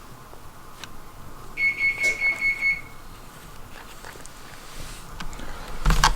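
A quick run of about five electronic beeps at one high pitch, lasting just over a second. Near the end comes a burst of knocking and rustling that is louder than the beeps.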